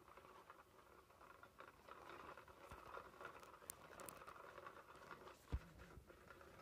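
SmartyKat Hot Pursuit cat toy running: a faint steady whir with light pattering and scratching as the hidden wand sweeps under the fabric cover. A single dull thump about five and a half seconds in.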